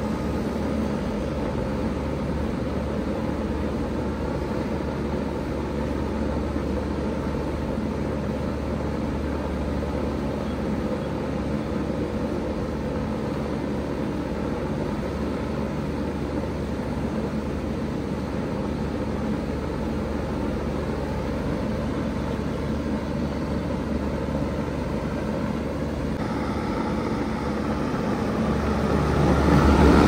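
Bard 3-ton wall-hung heat pump running in cooling mode: a steady low hum with the rush of its fan. It grows louder near the end as the microphone comes close to the unit's lower grille.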